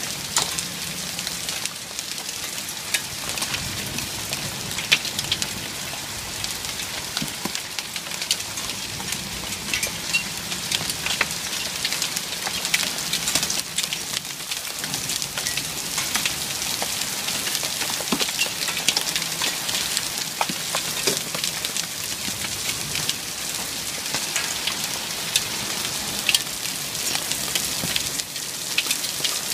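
Steady rain pattering on a hard surface, a dense hiss of many small drop clicks with no let-up.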